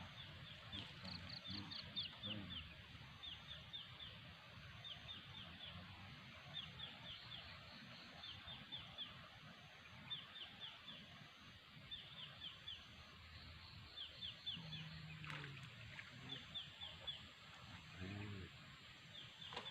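Faint outdoor ambience with a small animal calling over and over: quick groups of four or five high, falling chirps, repeated about every one and a half seconds.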